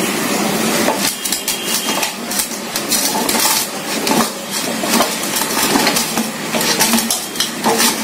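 Okra pods being rubbed dry in a cloth over a stainless steel plate: cloth rustling with many irregular light knocks and clinks of the pods and hands against the metal plate.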